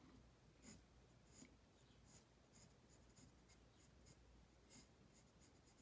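Faint scratching of a graphite pencil on drawing paper in short, irregular strokes, a little more than one a second, as fine feather lines are hatched in.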